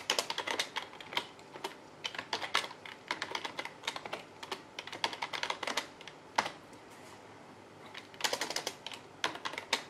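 Typing on a computer keyboard: quick runs of key clicks, with a short pause about two-thirds of the way through before a final brisk run.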